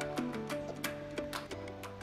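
Background music: an upbeat track with plucked guitar-like notes over a steady beat of percussive hits.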